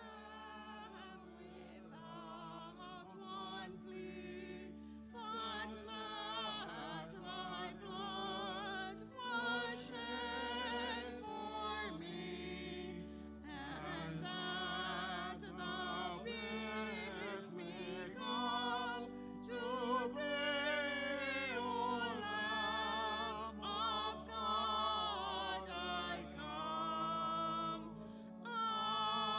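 A hymn sung by a solo voice with strong vibrato over sustained organ chords, growing louder over the first several seconds.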